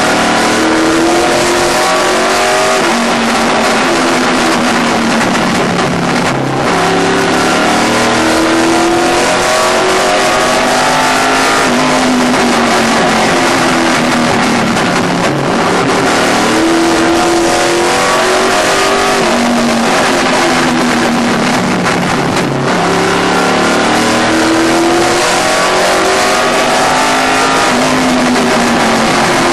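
Late model race car's V8 engine heard from inside the cockpit, running hard at racing speed. The pitch climbs along each straightaway and drops back as the driver lifts for each turn, a cycle repeating several times.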